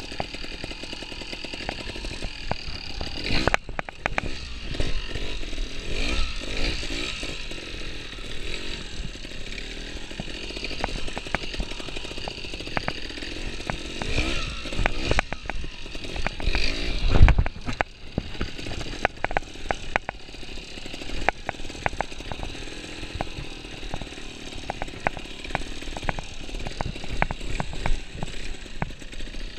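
Trials motorcycle engine revving up and down in short blips as the bike picks its way over roots and logs, with repeated knocks and clanks from the bike. There is one heavy thump about 17 seconds in.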